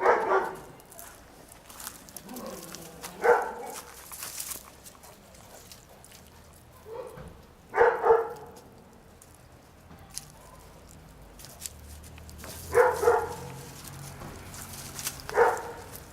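Dog barking: single barks every few seconds, twice coming as a quick pair.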